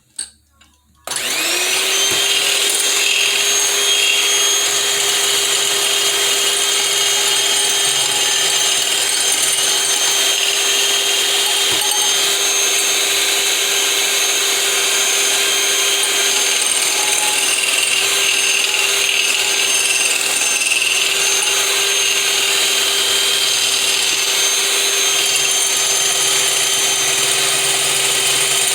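Electric blender motor switching on about a second in, spinning up and then running at a steady whir, blending egg and apple cider vinegar to start an emulsion.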